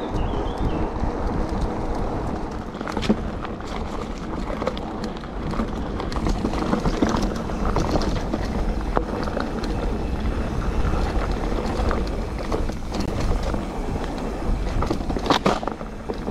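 Calibre Triple B mountain bike ridden over a dry dirt woodland trail: tyres rumbling and crunching on the ground, wind buffeting the camera microphone, and frequent clicks and rattles from the bike over bumps, with a sharper knock about fifteen seconds in.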